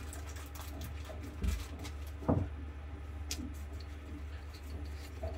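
A couple of dull knocks and a few small clicks of hand work on the diesel engine's fuel filter, over a steady low hum.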